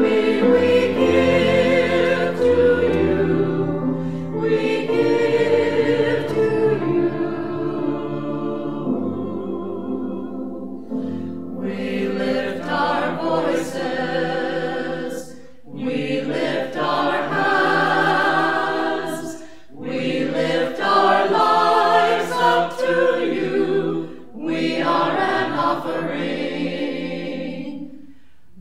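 A choir singing a song, phrase after phrase, with brief breaks between phrases.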